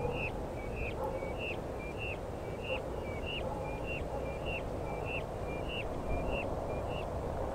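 A bird calling in a steady, repeated rhythm: a short low whistle then a higher upswept note, about twice a second. It sounds over a steady low rumble of ambience.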